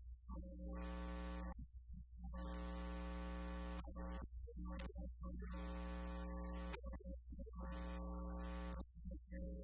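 Electronic buzz at one unchanging pitch, switching on and off in stretches of one to two seconds over a constant low hum, with a short high beep about halfway through: the sound system is putting out a buzz in place of the preacher's voice.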